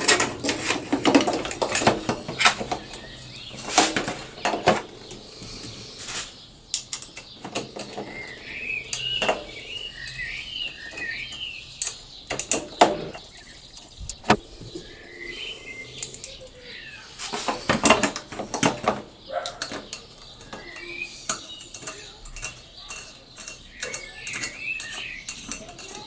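Irregular metallic clinks and knocks as a stainless air tank is handled and fitted into a motorcycle's tail frame, with an Allen key worked on its mounting. A bird chirps in short bursts in the background.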